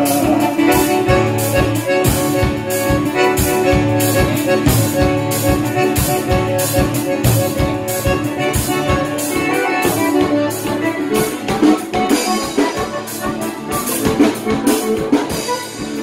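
Live band playing an instrumental passage with no singing: acoustic guitar, accordion and drum kit over a steady drum beat.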